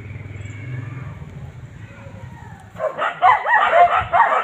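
Puppies squealing and yelping in a rapid run of loud, high cries that starts about three seconds in, over a faint low hum.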